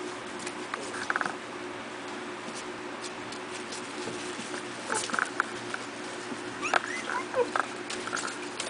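Four-week-old miniature pinscher puppies giving short high squeaks and yelps while they play, with a cluster of squeals sliding up and down near the end. Scattered scratching and clicking from their paws on the bedding and plastic tub, over a steady low hum.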